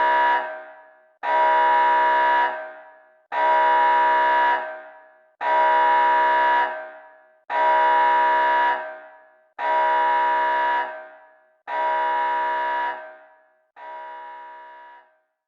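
Emergency-alert tone repeated about every two seconds. Each pitched blast is held for about a second and then trails off, and the last one near the end is clearly quieter.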